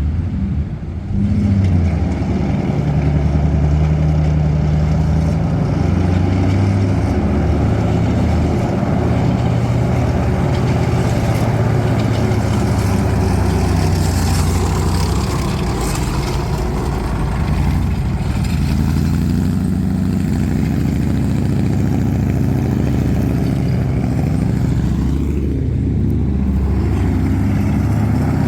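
Restored M3A1 Stuart light tank's engine running as the tank drives under its own power, revs rising and falling, with a jump in level about a second in.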